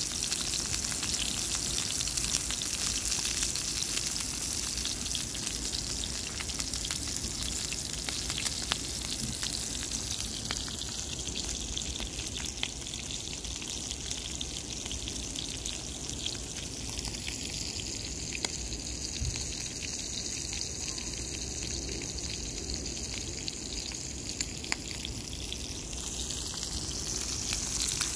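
Steak frying in oil in a skillet on a portable butane camp stove: a steady sizzle dotted with small pops and crackles.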